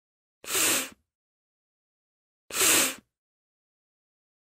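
A person's voice sounding the voiceless /f/ consonant on its own, twice: two half-second hisses of air forced between the lower lip and upper teeth, about two seconds apart.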